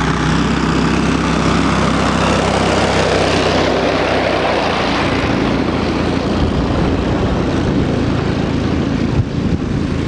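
Engine of a tracked Argo 8x8 all-terrain vehicle running steadily while driving over sea ice, under an even rushing noise of the vehicle's movement. The engine note shifts about halfway through.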